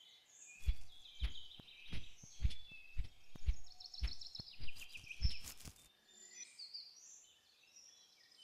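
Black stork chicks flapping their wings on the nest: a run of about ten soft wingbeat thumps, roughly two a second, that stops about six seconds in. Songbirds chirp throughout.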